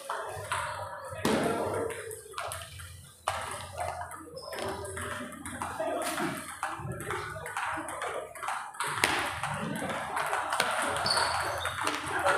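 Table tennis ball clicking sharply off paddles and the table in rallies, with people talking in the background.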